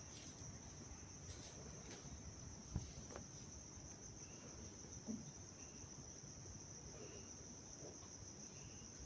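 Faint, steady high-pitched insect trill, with two soft knocks about three and five seconds in.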